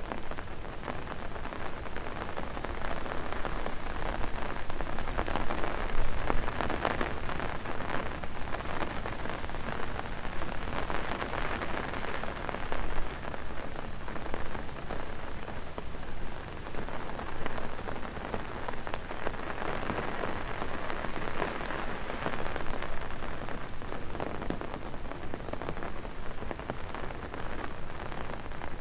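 Heavy rain falling on an umbrella overhead: a dense, steady hiss of countless drops that swells and eases in loudness.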